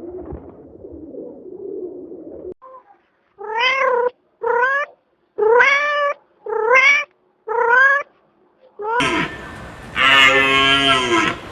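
A cat meowing five times, each a short call rising in pitch. A low rough sound comes before the meows, and near the end a louder, longer and lower animal call begins.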